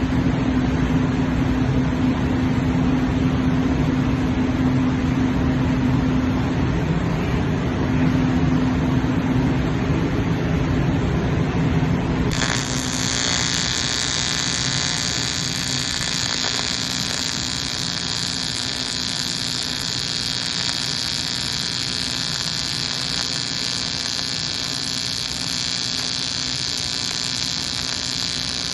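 AC TIG welding arc on aluminium, a steady electric buzz with hiss. About twelve seconds in the sound changes abruptly to a smoother, higher hiss.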